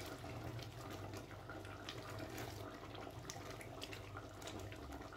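Silicone spatula stirring thick chickpea gravy in an aluminium pot: soft wet sloshing with small scattered clicks. A steady low hum runs underneath.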